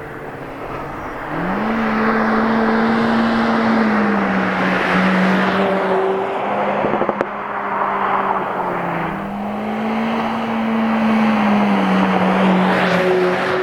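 2022 Honda Civic Si's L15B7 1.5-litre turbocharged four-cylinder running under way. Its engine note climbs about a second and a half in, holds, eases off, then climbs again around nine seconds in, over a broad rushing noise.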